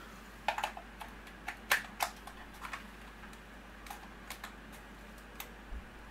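Irregular plastic clicks and taps from a toy RC car's hand-held remote control being handled, its buttons and switch pressed, with the loudest clicks a little under two seconds in.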